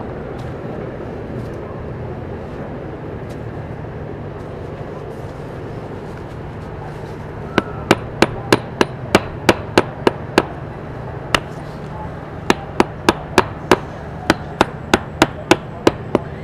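Sharp taps of a hand tool on brick during bricklaying work on an oven dome, coming in quick runs of about three a second from about halfway through, over a steady low hum.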